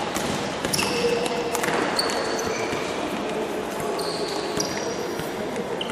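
Futsal play on a hall court: sports shoes squeaking in short high chirps on the floor and the ball being struck, over an echoing hall background.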